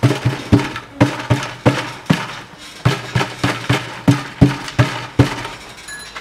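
Rear muffler of a Chevrolet Lanos shaken by hand, knocking hollowly about two or three times a second with a short low ring to each knock, stopping near the end. The knocking comes from the muffler's insides, which the owner says have burnt through and come loose, so the muffler rattles.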